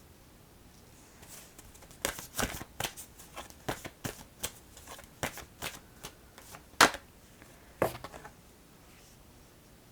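Oracle cards being shuffled and handled: a run of irregular sharp card snaps and taps over several seconds, the loudest near the end.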